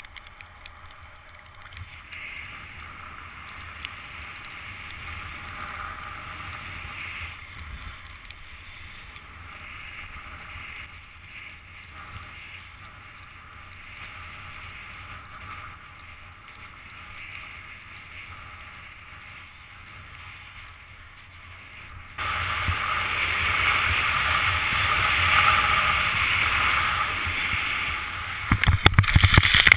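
Skis hissing and scraping over packed snow, with wind on the microphone. About 22 seconds in it turns suddenly louder and harsher. Near the end come a run of loud thumps and scrapes as the skier crashes into the snow.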